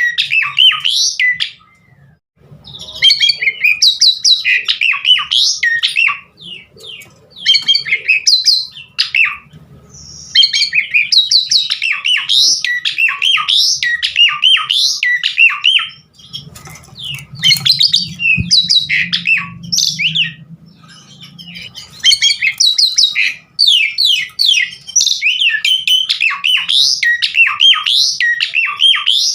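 Asian pied starling (jalak suren) in full song: long bouts of fast, varied chattering whistles, chirps and squawks, broken by a few short pauses.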